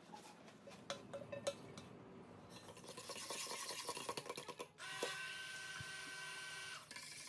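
A few clinks of metal on the stainless steel stockpot, then a stick blender running in the cold-process soap batter, its motor whining at a steady pitch for about two seconds before it stops near the end. The batter is being blended toward a light trace.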